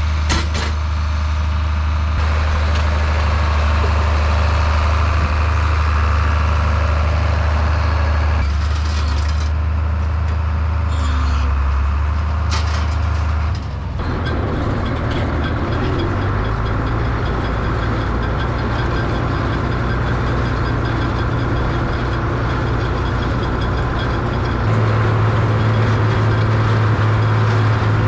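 Farm tractor engine running steadily. Its pitch shifts about a third of the way in, again about halfway, and again near the end.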